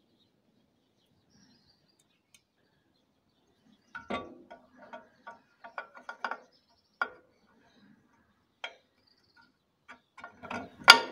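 Small metal oil-pump parts clicking and clinking as they are handled: about four seconds of silence, then scattered light clicks, and a quicker, louder run of clinks near the end.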